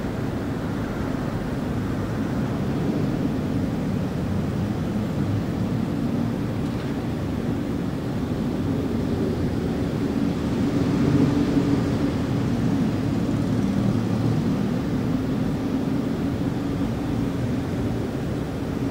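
City traffic ambience: a steady low rumble that swells slightly about halfway through.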